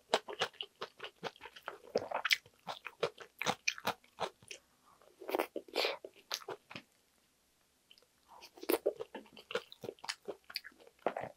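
Close-miked chewing and biting of kimchi and egg rice, with crunchy kimchi and dense clusters of wet clicks and crunches. There is a short lull between mouthfuls past the middle.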